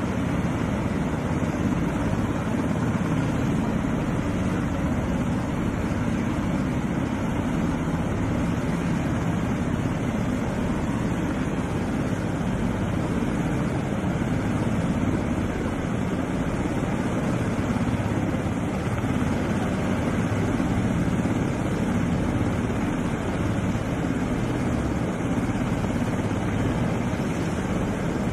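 Steady drone of military helicopter rotors and engines, an even rushing noise that holds at one level with no change.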